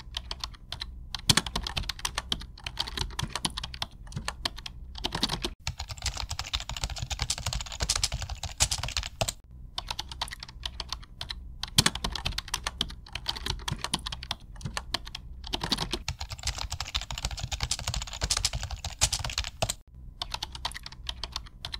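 Fast typing on an Acer laptop keyboard: a dense, continuous patter of key clicks with a few short breaks.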